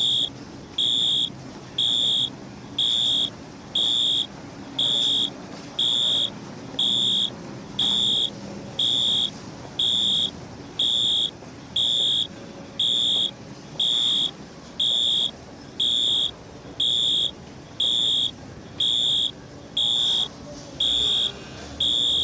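Fire alarm sounder beeping: a loud, high-pitched single tone pulsing on and off about once a second, each beep about half a second long.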